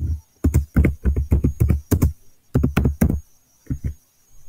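Typing on a computer keyboard: a fast, uneven run of key clicks in quick bursts with short pauses between them.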